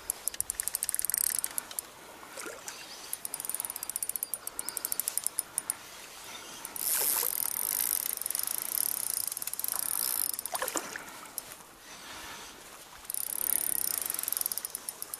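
Spinning reel clicking rapidly in several spells while a hooked fish is played on light braided line.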